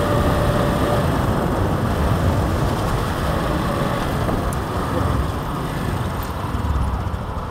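Steady wind rush and road noise of a moving motorcycle, heard from the pillion seat with wind buffeting the phone's microphone.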